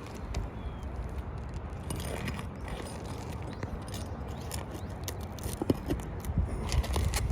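Scattered light clicks and scrapes of hand tools working on asphalt roof shingles, over a steady low rumble.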